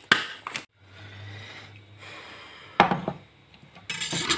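Kitchen handling sounds: blue disposable gloves being pulled on and a glass bowl of peppers moved across a wooden cutting board. There are sharp knocks at the start and about three seconds in, and a brief rustle near the end.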